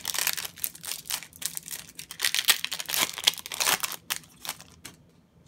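Foil wrapper of a Yu-Gi-Oh booster pack crinkling and tearing as it is ripped open by hand, with dense crackling that dies down about four seconds in.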